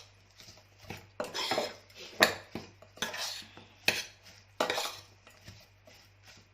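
A spoon clinking and scraping against a bowl in repeated strokes, about one a second, as a salad is tossed with its seasonings.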